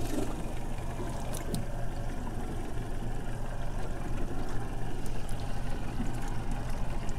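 Water lapping and trickling against a small boat's hull, with a steady low hum underneath and a couple of faint clicks about a second and a half in.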